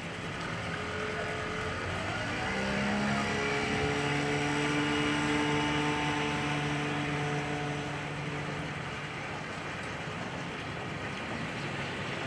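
Motorboat engine passing by: a droning hum that comes in about two seconds in and drops a little in pitch about a second later. It swells to its loudest midway and fades away near the end.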